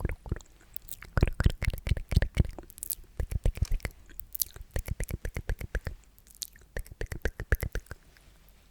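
Sticky, wet mouth sounds made close to the microphone: rapid irregular clicks and smacks of tongue and lips, in quick clusters with short pauses between.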